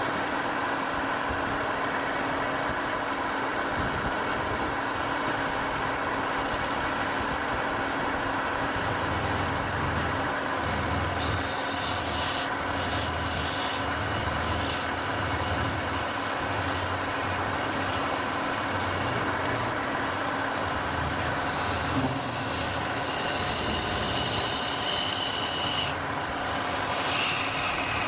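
Wood lathe running steadily, with a turning tool cutting the spinning wood now and then, which adds a higher scraping on top of the motor.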